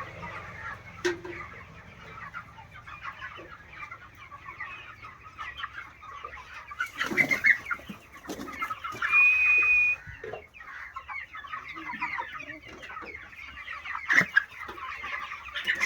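A flock of young broiler chickens clucking and chattering continuously, with a few sharp knocks. About two-thirds of the way through, a loud sound about a second long carries a steady high whistle-like tone.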